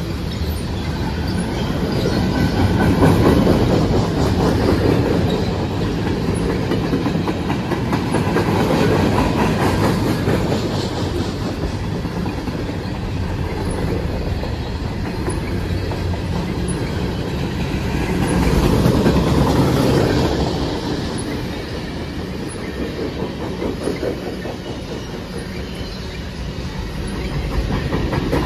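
Mixed freight cars of a CSX manifest train (covered hoppers, tank cars) rolling past at track side: a steady rumble of steel wheels on rail with clickety-clack over the joints, swelling and easing every several seconds.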